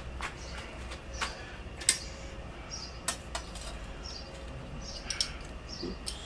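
Sharp small metal clicks and clinks of a licence-plate bracket and its screws being handled and held up against a motorcycle's tail, scattered and irregular, the loudest about two seconds in.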